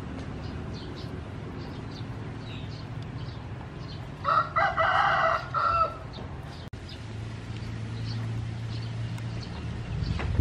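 A rooster crows once, about four seconds in, lasting under two seconds, over faint short high chirps.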